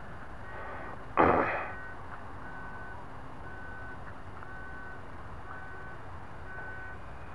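A short loud burst of noise about a second in, fading quickly, then a high electronic beep repeating about once a second over a steady background hiss.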